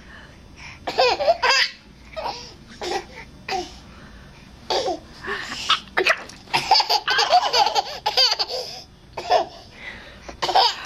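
A baby laughing in many short bursts of giggles.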